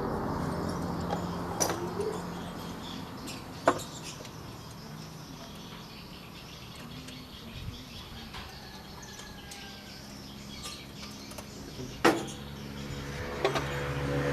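Kubota DC70 combine harvester's diesel engine running steadily at low revs, its hum fading in the middle and coming back stronger near the end, with four sharp metallic clicks and knocks from work on the machine.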